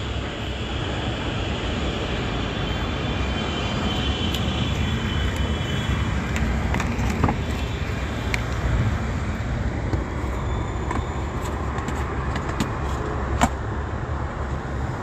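Steady road traffic noise, with a few sharp clicks and knocks from the phone being handled.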